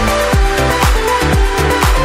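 Background electronic dance music with a steady kick drum, about two beats a second, under sustained synth notes.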